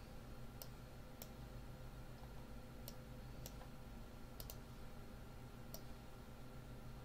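Computer mouse clicking: about seven short, sharp clicks at irregular intervals, including a quick double click about four and a half seconds in, over a faint steady electrical hum.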